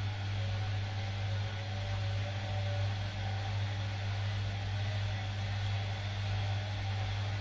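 Bosch Maxx 7 front-loading washing machine running mid-cycle, a steady low hum with a faint higher drone over it.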